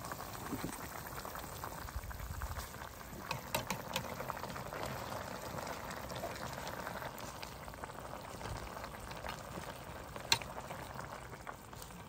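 Chicken-and-lemongrass hotpot broth bubbling at a boil in a metal pot as fresh greens are pushed in. One sharp clink of a metal ladle against the pot comes near the end.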